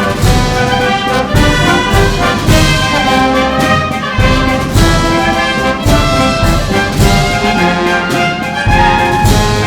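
Municipal wind band playing a Spanish Holy Week processional march, with brass (trumpets and trombones) carrying the melody over a slow, regular drum beat of about one stroke a second.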